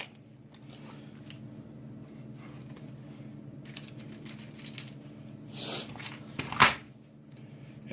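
Small metal pop rivets clicking and clattering as they are handled and picked out, with a sharp click a little before the end. A steady low hum runs underneath.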